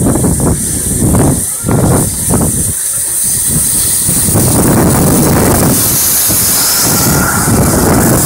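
Steam locomotive No. 6695 drawing slowly into the station and passing right beneath, with a loud rush of hissing steam. The sound is uneven for the first three seconds, then becomes a steady hiss.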